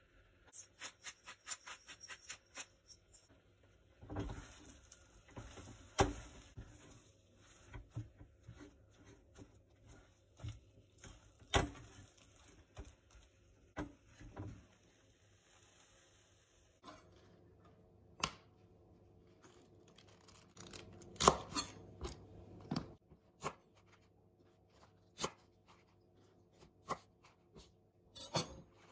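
A run of rapid, even clicks as salt and pepper go in, then a spatula scraping and stirring mashed potato and carrot in a stainless steel pot, with sharp knocks against the pot. In the last third, scattered taps and knocks of silverbeet leaves being handled on a wooden chopping board.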